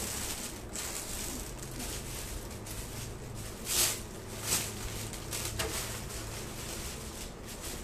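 Soft rustling of cloth and handling noise over a steady low hum, with two short louder rustles a little under halfway through.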